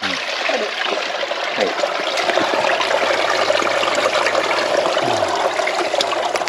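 Spring water running and splashing steadily from a spring outlet, a loud even rush with no change in the flow.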